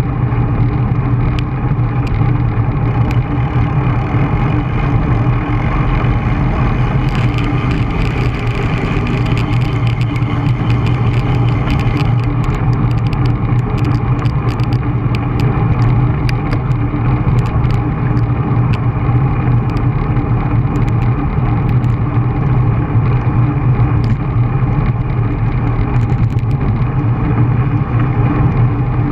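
Wind rushing over the microphone of an action camera on a bicycle moving at speed: a loud, steady low rumble with scattered sharp clicks, most of them in the first half.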